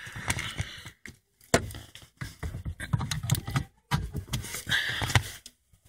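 Irregular clicks, knocks and rustling as hands pry at a car's heater core pipe fitting, with the plastic sheeting around it crinkling, in uneven spurts with brief pauses.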